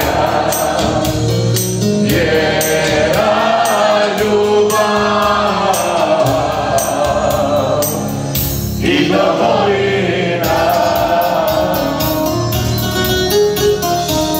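Several men singing a song together, one of them into a microphone, over amplified music with a steady beat.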